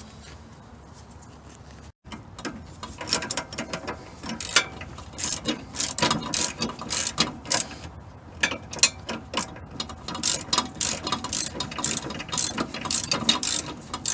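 Hand ratchet clicking in quick, irregular runs from about two seconds in, as it is worked back and forth to back off a sway bar end link nut.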